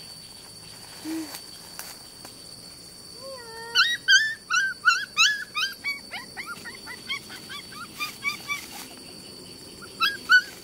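Young puppies whining and yelping in a quick run of short, high-pitched cries that starts about three seconds in and lasts several seconds, with a couple more cries near the end.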